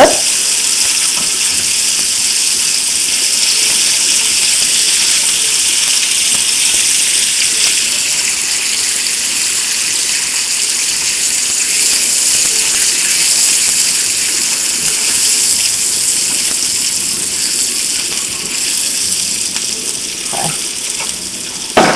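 Split skinless beef hot dogs sizzling in a frying pan with a little olive oil: a steady, dense, high hiss that eases slightly near the end.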